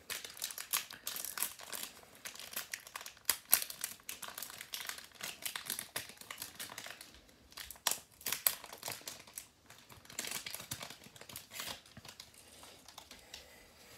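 Wrapper of a 2018 Topps Update Series baseball card fat pack crinkling and tearing as it is opened and the cards pulled out, a dense run of irregular crackles that thins out near the end.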